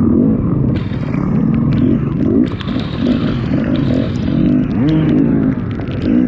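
Off-road dirt bike engine revving up and down again and again as the throttle opens and closes, with scattered sharp clicks over it.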